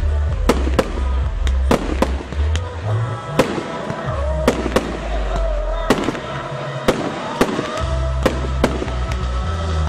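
Fireworks going off in a display: sharp cracks and reports about twice a second, over loud background music with a heavy bass.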